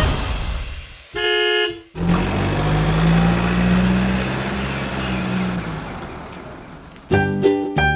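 A car horn gives one short honk about a second in. A car engine then runs with a steady low hum that slowly fades away.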